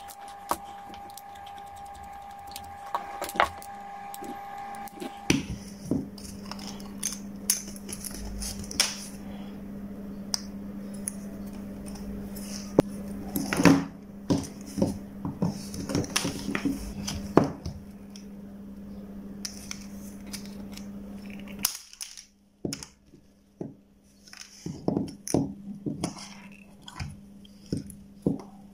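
Scattered small clicks and taps of a desoldering gun being taken apart by hand: a screwdriver working at its metal barrel, then the plastic handle and cable being handled. A steady low hum runs underneath.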